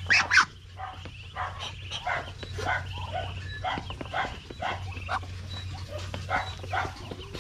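Farmyard animal calls repeating about twice a second, loudest in a pair of calls right at the start.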